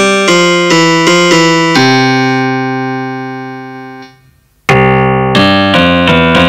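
Yamaha PSR-F51 portable keyboard playing a piano voice, recorded straight from its line output: quick repeated chords, then one chord held and left to fade out over about two seconds. After a brief silence, a new passage of chords starts abruptly in a fuller, brighter piano tone.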